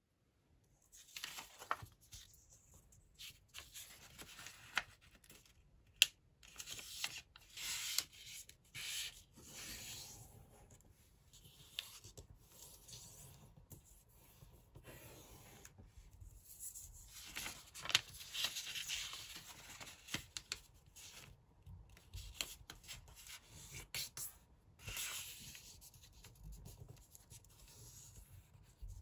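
A sheet of 15 cm origami paper being folded and creased by hand on a tabletop: bursts of crisp paper rustling and rubbing as fingers slide along the folds, with a few sharp clicks, the loudest about six and eighteen seconds in.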